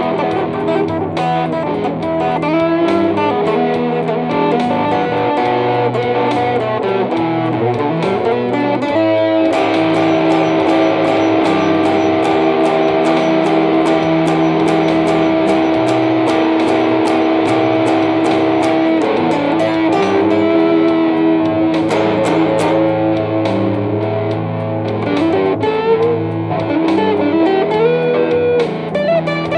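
Telecaster-style electric guitar played through a small combo amp: a blues with picked single notes and string bends. From about ten seconds in, notes are held ringing for several seconds before the picking and bending resume.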